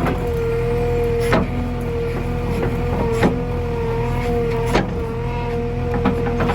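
JCB 3DX backhoe loader's diesel engine running steadily under a constant high whine, with sharp knocks about every second and a half.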